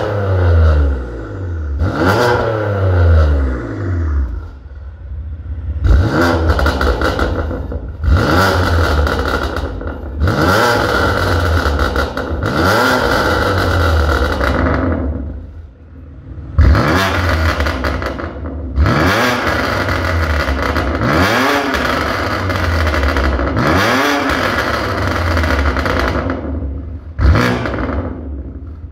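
BMW M2 Competition's twin-turbo inline-six, breathing through an ARMYTRIX turbo-back exhaust, blipped hard about a dozen times. Each rev rises sharply and falls away with crackling and popping from the exhaust.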